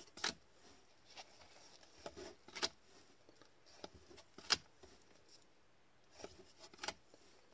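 Hockey trading cards being flipped through one at a time by gloved hands: a faint sliding of card stock with a short, sharp flick roughly every second, the loudest about four and a half seconds in.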